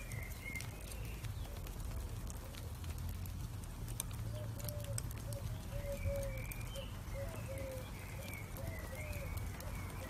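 Charcoal embers burning, with a steady low rumble and occasional sharp crackles. A run of short pitched calls sounds in the background from about four to eight seconds in.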